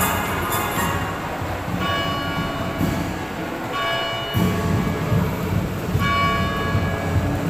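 Church bell struck about every two seconds, three ringing strokes, with a low rumble underneath from about halfway.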